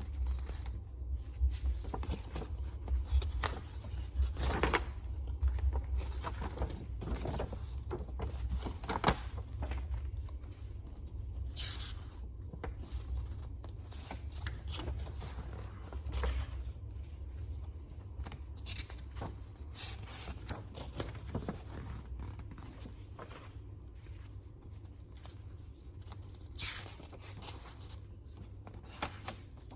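Stationery packaging being opened and handled by hand: irregular snips, scrapes and rustles of paper and plastic, busier in the first half, over a low steady hum.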